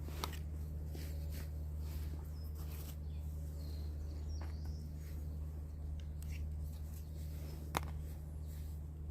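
Outdoor ambience: birds chirping now and then over a steady low hum, with a sharp click just after the start and another near the end.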